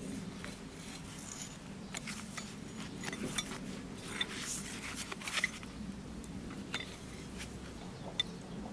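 Rusted old pincers being handled and worked in gloved hands: scattered small metallic clicks, scrapes and light clinks, with a few brief pings, over a steady low hum.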